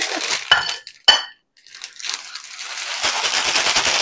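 Two sharp clinks of a ceramic bowl against the counter, about half a second apart, each with a short ring. From about two seconds in, a plastic bag of salad crinkles and rustles as it is handled.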